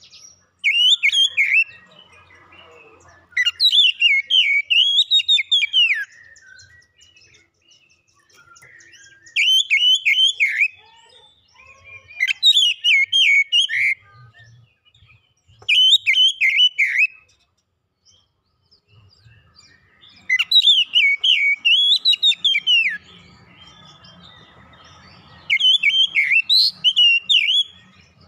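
Oriental magpie-robin singing loudly in seven bursts of one to three seconds each. Each burst is a quick run of notes sweeping up and down, with short pauses between.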